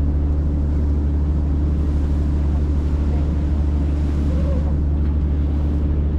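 A tour boat's engines running in a steady low drone while it cruises.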